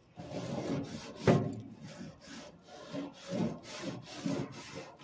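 Grill brush scrubbing back and forth over a charcoal grill's metal grates, a run of uneven rasping strokes with a louder scrape about a second in, cleaning off old residue before cooking.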